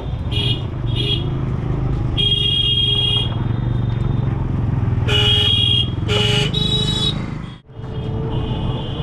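Road traffic with vehicle horns honking repeatedly, about seven short honks of varying length, over a steady engine and road rumble.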